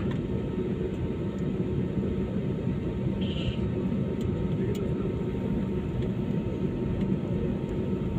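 Steady rumble inside an airliner's passenger cabin: jet engine and airflow noise as an even low drone with faint hum tones, broken only by a few faint clicks.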